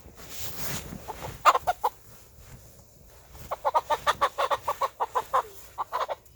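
Chickens clucking: a few clucks about a second and a half in, then a quick run of rapid clucks for about two seconds, and a few more near the end.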